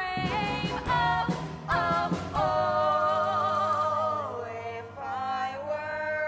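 A woman singing a musical-theatre number over an instrumental backing track, holding one long note with vibrato through the middle.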